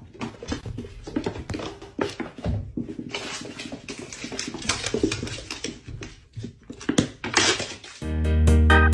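Music, with a busy run of short clicks and knocks; a much louder tune comes in near the end.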